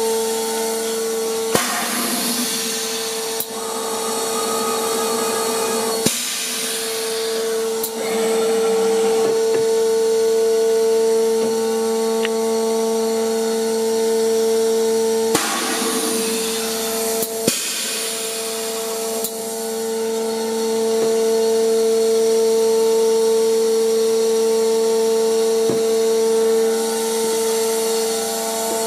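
Automatic volumetric liquid dosing machine running: a steady high-pitched hum throughout, broken four times by a few seconds of hissing, rushing noise, with sharp clicks at intervals.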